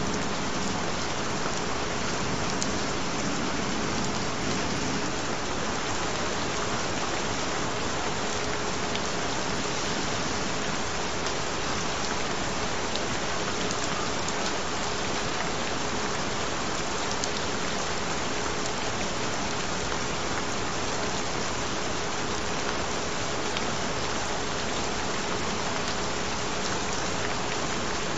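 Steady, even rain falling, with a single steady tone held underneath it.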